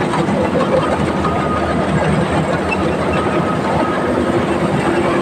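A motor vehicle's engine running steadily and loudly, with a clattering rattle over it.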